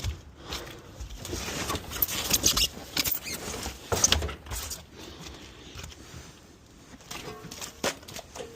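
Irregular clattering, knocking and scraping of scrap being handled and shifted, busiest in the first half, with a short squeak near the end.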